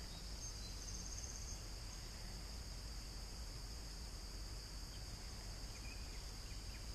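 Steady, high-pitched chorus of insects, with a few faint chirps over it.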